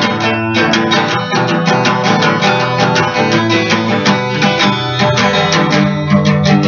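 Guitar music with a quick, steady run of plucked notes over held lower notes.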